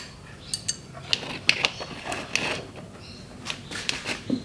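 Irregular sharp metallic clicks and clinks of a spanner working a fitting on the clutch hydraulic line.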